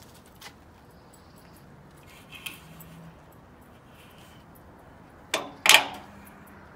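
Hanging strawberry grow bag being hooked onto an overhead pergola beam: a few light knocks, then two sharp jangling clatters close together about five and a half seconds in.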